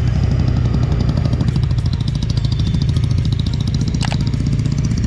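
Bajaj Dominar 250's single-cylinder engine running steadily as the motorcycle rides along, its rapid firing pulses loud and continuous. A single sharp click comes about four seconds in.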